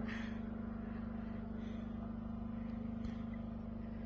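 Steady mechanical hum: one low, even pitched drone with no change in speed.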